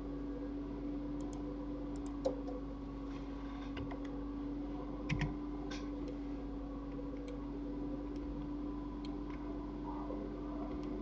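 Occasional computer mouse and keyboard clicks over a steady low hum, with a sharper click about two seconds in and a quick pair of clicks about five seconds in.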